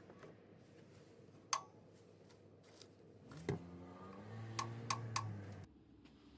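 Sharp metallic clicks of tools being handled, one alone and then three in quick succession. They are overlapped by a low, steady whirring of about two seconds that starts with a rising pitch and stops abruptly.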